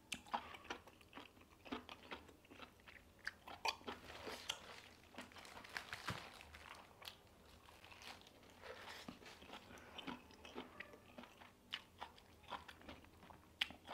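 A person chewing spicy-sauced octopus and noodles close to the microphone: faint, irregular crunches and small wet mouth clicks.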